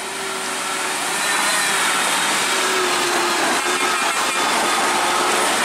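Diesel engine of a UD Trucks LPG tanker truck running as the truck creeps slowly past over a rough, muddy road: a steady drone with a slowly wavering tone.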